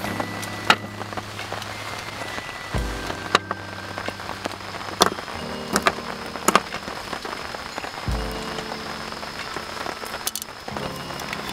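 Rain falling, with scattered sharp drop hits on a surface, over soft background music whose held chords change every few seconds.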